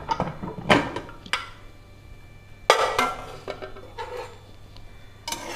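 Metal clinks and knocks as the whistle weight is lifted off an aluminium Prestige Popular pressure cooker and the lid is worked free and taken off: a few light clicks, then a louder clank with a short ring about two and a half seconds in, and one more knock near the end.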